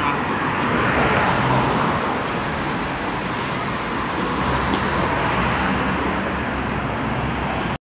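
Steady road traffic noise from a busy street, swelling briefly about a second in.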